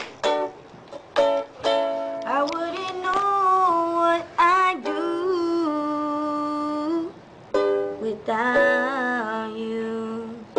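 A slow song: plucked-string accompaniment under long, held melody notes that slide between pitches.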